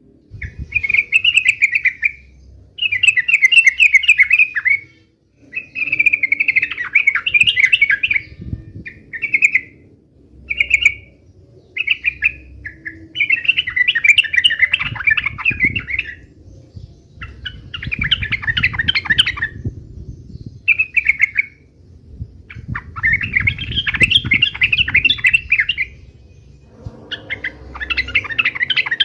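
Yellow-vented bulbul (trucukan) calling in a long run of short, rapid chattering phrases with brief pauses between them: the excited 'uplik-uplik' fighting calls.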